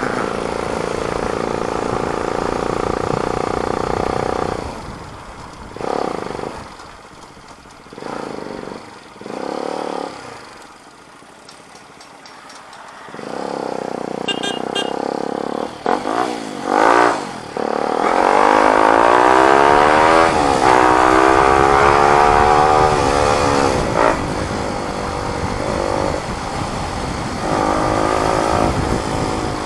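Motorcycle with a new muffler, the exhaust note heard while riding. It eases off and drops to a low murmur about a third of the way in, then pulls away with the pitch rising and stepping down several times as it shifts up through the gears.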